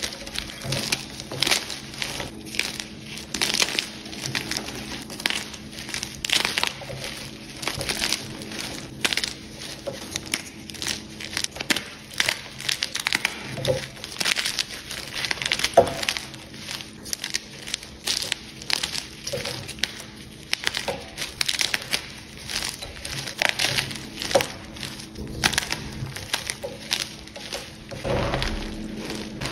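Blocks of Jenny's Choice gym chalk crushed and crumbled in bare hands: a continuous, irregular crunching and crackling as the blocks break into chunks and powder, with a few sharper snaps here and there.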